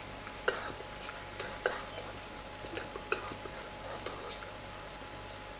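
Scattered soft clicks and taps from a person signing in sign language, with the hands and mouth making contact sounds, over a faint steady hum.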